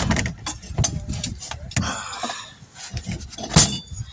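Scraping, rubbing and irregular knocks as a tire is worked off a wheel rim, with one sharp knock about three and a half seconds in.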